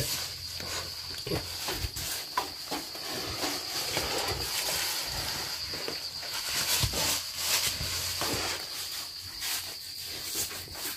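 Crickets trilling steadily on one high note, with scattered rustling and knocks of someone moving through leafy plants.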